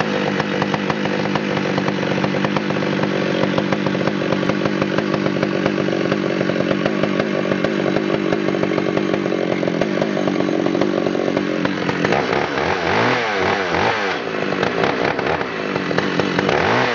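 Pioneer 655 chainsaw's 6-cubic-inch two-stroke engine running at a steady speed, then revved up and down repeatedly from about twelve seconds in.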